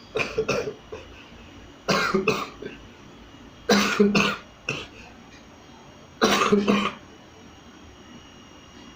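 A person sneezing four times in quick succession, one sneeze about every two seconds.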